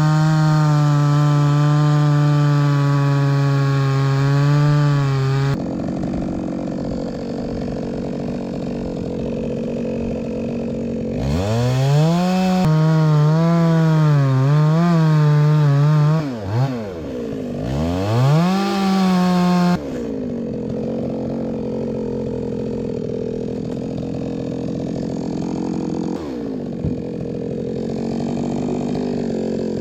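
Chainsaw cutting logs: the engine runs at full throttle with a steady high pitch, drops suddenly to a lower running sound, revs up again about a third of the way in with its pitch wavering and dipping, then drops back to a steady lower running sound for the last third.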